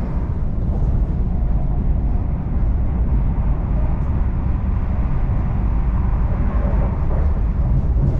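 Interior cabin noise of a Class 745 Stadler FLIRT electric multiple unit running at speed: a steady rumble of wheels on rail with the hiss of air past the body.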